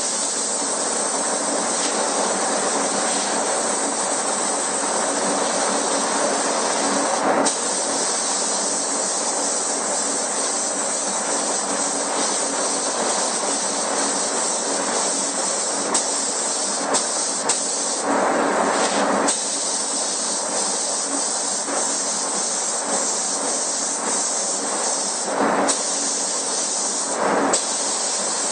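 Compressed-air paint spray gun hissing steadily as paint is sprayed, with a few short louder bursts.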